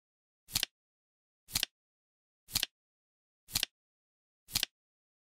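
Flip-clock flap sound of a countdown timer clicking once a second, five times, each a quick double click with silence in between.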